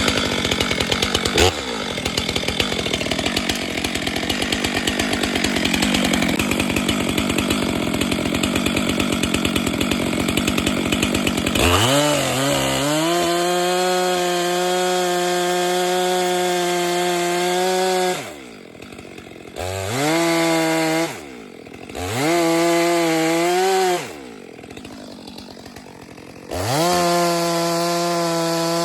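Chainsaw cutting into dead ash wood with the engine labouring under load. About 12 seconds in it rises to a high, steady full-throttle pitch. Near the end it falls back to idle three times, with a burst of throttle after each.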